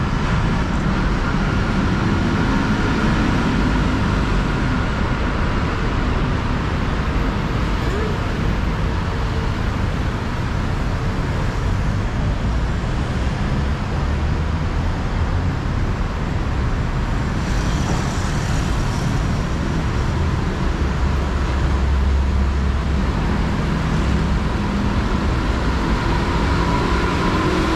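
Steady city road traffic noise: a continuous low rumble with a hiss on top, without breaks.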